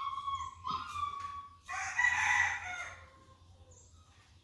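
Rooster crowing: a series of pitched notes ending in a longer, louder, hoarse note that fades out about three seconds in.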